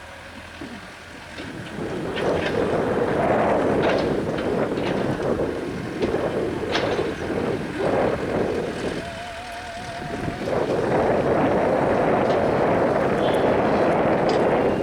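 CAT 320D excavator working: a steady rushing machine noise from its diesel engine and hydraulics grows louder about two seconds in, eases briefly about two-thirds of the way through, then comes back up.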